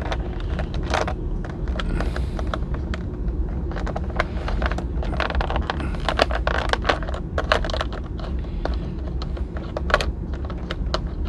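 Clear plastic blister tray clicking and crackling as hands press a small toy trumpet and other figure accessories into its moulded slots, many irregular sharp clicks over a steady low hum.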